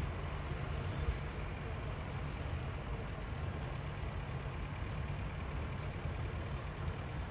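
Harbour ambience: a steady low rumble with a faint knock about a second in.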